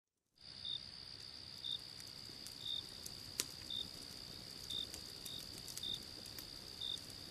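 Night-time cricket ambience fading in: a steady high insect trill with separate short cricket chirps about once a second. A few faint clicks, and one sharper click about three and a half seconds in.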